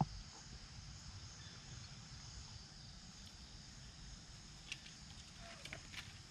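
A steady, high-pitched insect chorus, with a few faint ticks in the second half.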